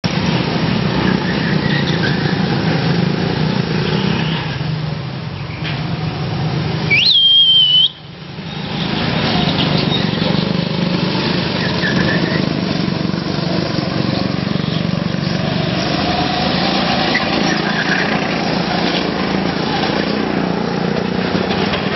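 Go-kart engines running as karts drive past on the track, a steady drone. About seven seconds in, a loud shrill tone jumps up and holds for under a second, and it is the loudest moment.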